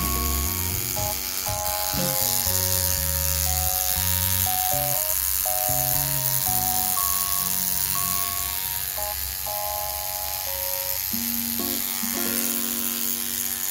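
Background music: a melody of held notes changing pitch every fraction of a second over a bass line, with a steady high hiss underneath.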